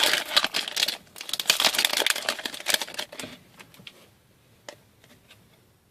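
Foil wrapper of a hockey card pack being torn open and crinkled, in loud crackling bursts for about three seconds. A few faint clicks follow as it goes quiet.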